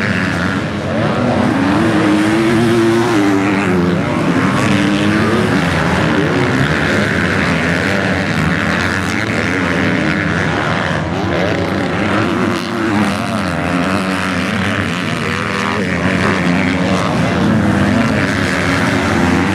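Several MX2-class motocross bikes racing on a dirt track, their engines revving up and down as they overlap and pass.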